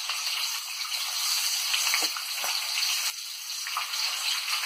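Green chillies deep-frying in hot oil on high heat: a steady sizzle with a few small crackles.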